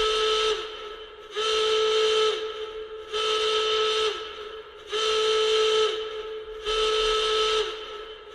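Emergency-alert alarm made of repeated horn-like whistle blasts, each about a second long and ending in a slight drop in pitch, sounding about every two seconds.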